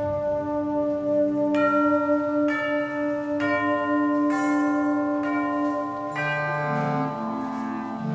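Concert band playing softly: a held chord with bell-like struck notes from mallet percussion entering about once a second, each ringing on. Lower instruments come in with moving notes near the end.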